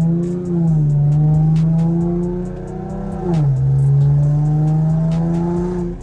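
Infiniti G37's 3.7-litre VQ V6 pulling under throttle. Its note holds steady, then drops sharply a little over three seconds in as the car shifts up, then holds again.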